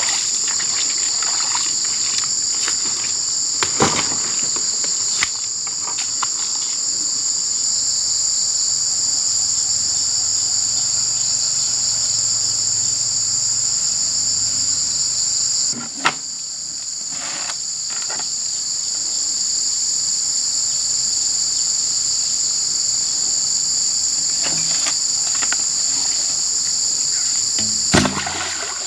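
Steady, loud high-pitched chorus of insects in the streamside vegetation, with a few short knocks and a splash of water near the end.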